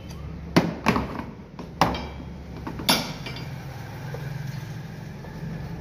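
Metal socket tool clinking on the retaining nuts of a Toyota VVT-i engine cover as they are undone: four sharp metallic clinks in the first three seconds, over a steady low hum.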